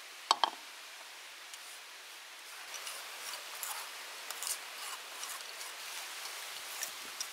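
Metal spoon scraping and pressing wet pulp against a stainless-steel mesh sieve, a run of rasping scratches over the last few seconds. About half a second in, two sharp metallic clinks of metal on metal.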